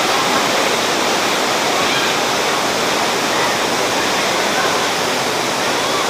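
Waterfall pouring into a rocky pool: a steady, even rush of water, with faint voices of people under it.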